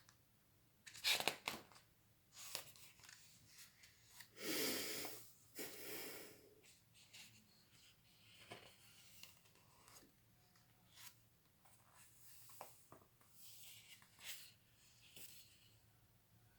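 Faint rustling and crinkling of a picture book's paper pages being handled and turned, with a few small taps and clicks; the longest rustle comes about four and a half seconds in.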